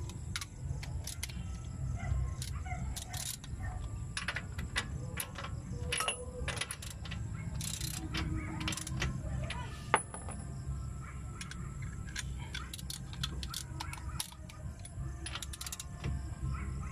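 Scattered metallic clicks and clinks of a hub nut, washer and socket wrench being handled and fitted at a car's rear brake drum hub, with a sharper click about ten seconds in, over a low steady rumble.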